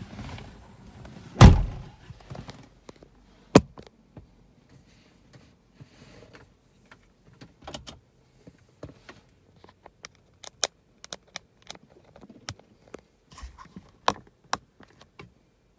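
A heavy low thump about a second and a half in, then scattered sharp clicks and taps through the rest. This is handling noise from a handheld camera's built-in microphone being moved and gripped.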